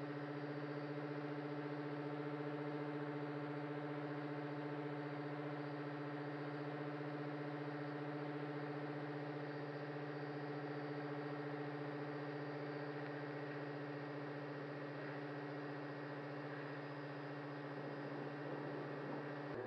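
Electric motor and propeller hum of an RC airship picked up by its onboard camera: a steady, constant-pitch drone with several held tones over it.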